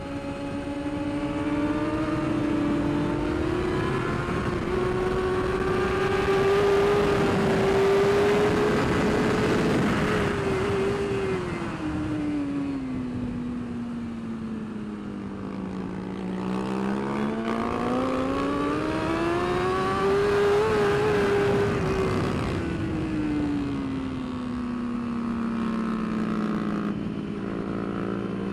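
BMW S1000RR inline-four sportbike engine running hard on track, its pitch climbing and falling smoothly twice, over steady wind noise.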